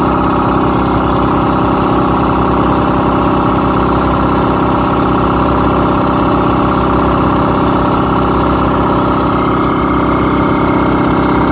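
Quincy air compressor running steadily as it pumps up its tank, nearing cut-out pressure; it does not shut off here.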